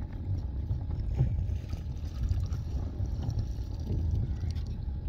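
Wind buffeting the microphone, a low uneven rumble, with a few faint knocks.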